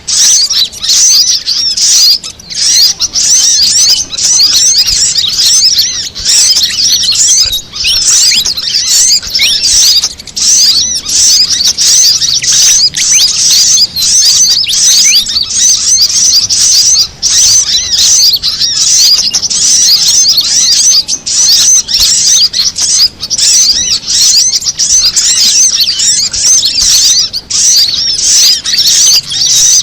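Bird-lure recording of small birds calling: fantail (kipasan) calls mixed with brown-throated sunbird (kolibri kelapa) and female sogon calls. It is a loud, dense, unbroken twittering of many high chirps overlapping one another.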